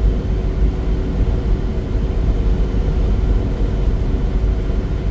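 Steady road and engine noise of a car at highway speed, heard from inside the cabin: a low rumble with a faint steady hum over it.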